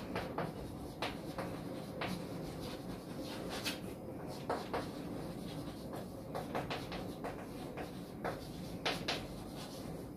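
Chalk tapping and scraping on a chalkboard as words are written, a string of short irregular strokes and clicks.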